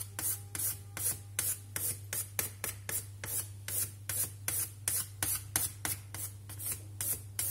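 Pencil scratching across the face of a 1000/6000-grit ceramic whetstone in short, even strokes, about three a second, marking a grid to show high and low spots before flattening. A steady low hum runs underneath.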